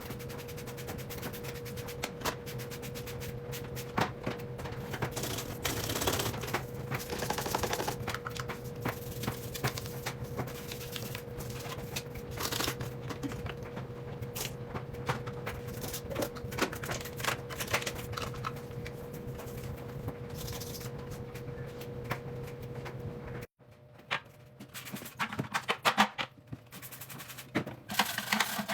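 A washing machine being scrubbed by hand: a dense run of quick scratching and rubbing strokes over a steady faint hum.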